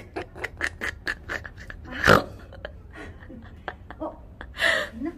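A woman's breathless laughter, in quick wheezing gasps about five a second, with a louder burst about two seconds in and another near the end.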